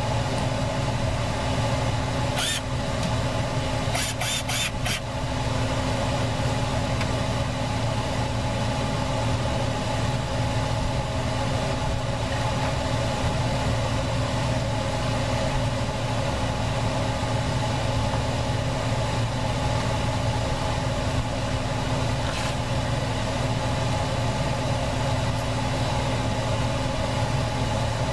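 A portable electric fan running with a steady hum made of several held tones. One sharp click comes about two and a half seconds in, and a quick run of four clicks about four seconds in.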